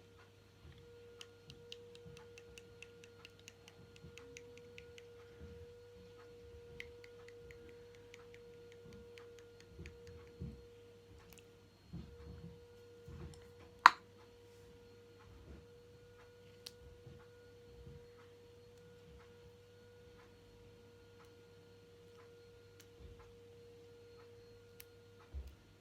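Faint steady hum with a single held tone, under scattered light clicks and taps; one sharp click about 14 seconds in.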